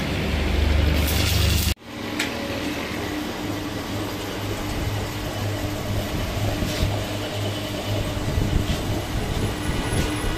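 Metal lathe running, spinning a truck's rear axle housing with its freshly welded spindle, a steady mechanical hum with a held tone and a few light ticks. A louder low hum cuts off sharply about two seconds in, where the lathe sound takes over.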